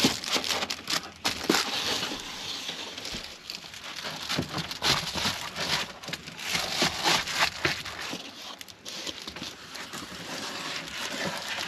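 Window covers being handled and pressed tight against a minivan's windows. The material crinkles and rustles in an irregular run of crackles and scrapes.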